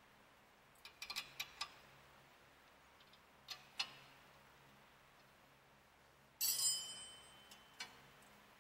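Metal-on-metal clinks from a wrench and the steel hub adapter of an on-car brake lathe being handled on the wheel studs: a cluster of light clicks about a second in, two more at about three and a half seconds, then a louder clatter with a short ring about six and a half seconds in.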